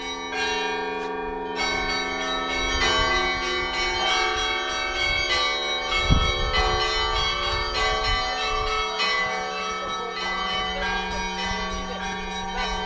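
Church bells ringing: several bells of different pitch struck over and over, their tones ringing on and overlapping. A dull low thump about six seconds in.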